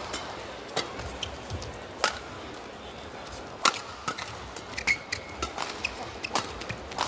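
Badminton rackets hitting a feather shuttlecock during a doubles rally: a series of sharp, short cracks about one every second or so, over a steady murmur of arena crowd noise.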